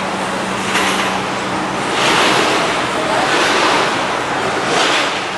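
Gusty wind rushing over the microphone, swelling and easing several times, over a steady low hum from the small passenger ferry's engine as it comes in slowly.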